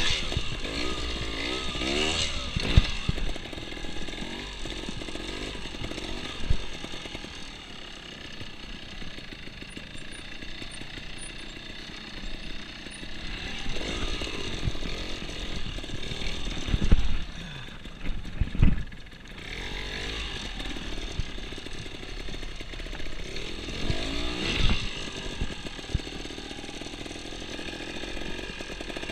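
Trials motorcycle engine running at low speed, revving up and dropping back again and again as it is blipped through an observed-trials section, with a few sharp knocks along the way.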